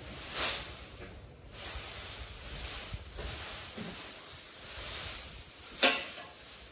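Loose straw rustling as it is tossed and spread with a pitchfork, with two louder swishes, about half a second in and near the end.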